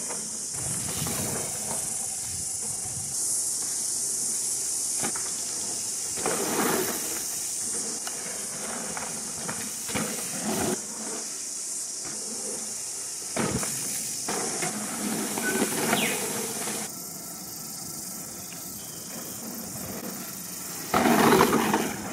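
Giant Reign 2 mountain bike ridden past on a dirt trail: several short bursts of tyre noise, crunching and skidding through loose dirt in the corners, the loudest pass near the end. Under them runs a steady high hiss.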